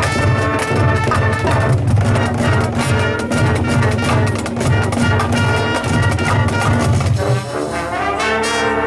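Marching band playing: loud brass with a drum line hitting rapid strokes under a driving low-brass line. About seven and a half seconds in the drums stop and the brass holds sustained chords.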